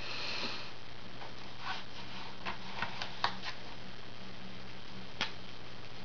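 Handling of Crayola felt-tip markers: a brief rustle of a hand over paper, then a few light plastic clicks and taps as a green marker is picked from the row, with one more click near the end. A steady low hum runs underneath.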